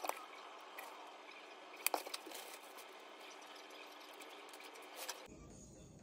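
Quiet kitchen handling while dumplings are seasoned: a few light clicks and taps of a wooden spoon and sauce bottles, one at the start and a short cluster about two seconds in, over a faint steady hiss. Near the end the faint background changes to a lower hum.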